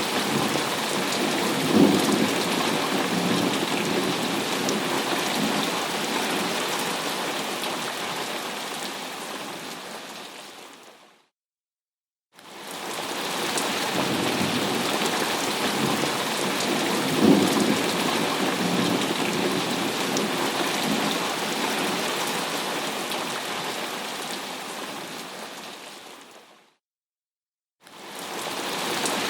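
Thunderstorm recording: steady rain with a sharp crack of thunder and a following rumble about two seconds in. The same stretch plays again as a loop. It fades out to about a second of dead silence twice, near the middle and near the end, and then fades back in.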